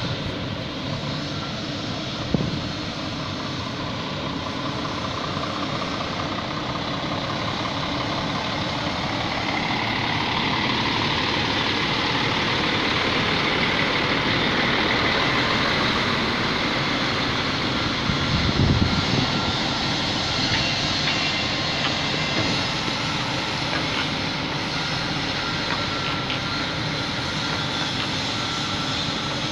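Diesel engine of a Mercedes-Benz truck pulling a bulk cement tanker semi-trailer, running as the rig drives slowly past, getting louder as it comes close about halfway through. A brief low thump follows shortly after.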